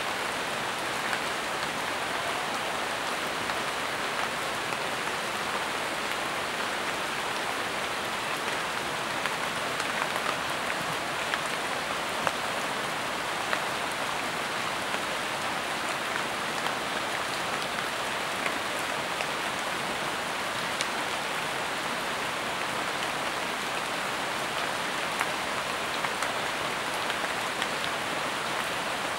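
Steady rain falling, an even patter with scattered louder single drops landing close by.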